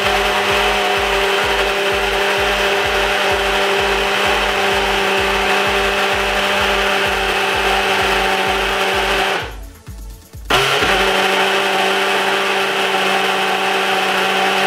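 Personal single-serve blender running steadily, blending pineapple chunks and ginger with lemon juice, honey and water into a smoothie. It stops for about a second roughly two-thirds of the way through, then starts again and runs on.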